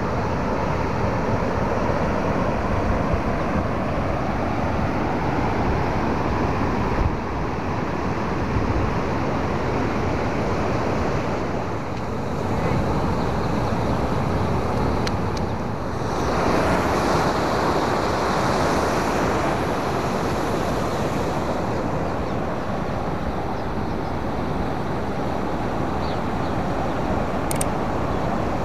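Steady rush of water pouring through an open dam spillway gate and churning into the river below, swelling louder for a few seconds past the middle.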